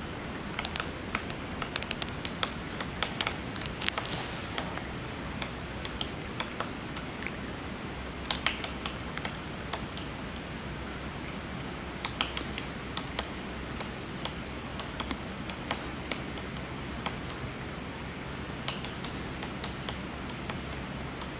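Great spotted woodpecker pecking at a pine cone wedged in a tree crevice, working the seeds out of it: irregular runs of sharp taps with pauses between, over a steady hiss.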